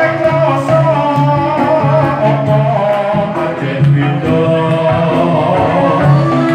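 Live amplified music: a man singing into a microphone over electronic keyboard accompaniment, with held notes and a steady beat.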